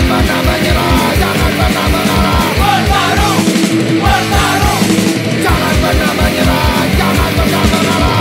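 Background rock music with a steady drum beat and a vocal line.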